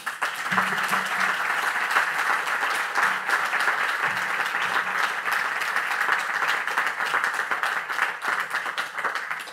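Audience applauding: many hands clapping together, starting suddenly and dying away near the end.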